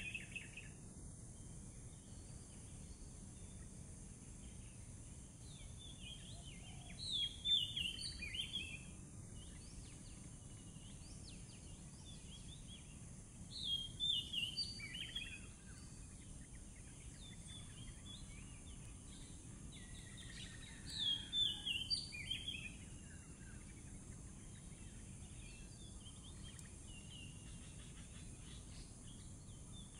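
Oriental magpie-robin calling in three short bursts of high, falling notes, about seven seconds apart, over a steady faint high hiss.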